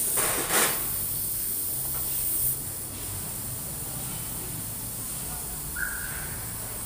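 Compressed air hissing from a pneumatic tool on its air hose, with one short loud blast about half a second in. The hiss stops about two and a half seconds in, leaving a low steady hum.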